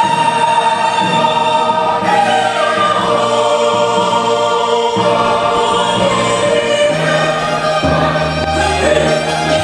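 Church choir singing a gospel song, with a woman's voice on a microphone leading above the choir. Low held accompaniment notes sit underneath, changing about halfway through and again near the end.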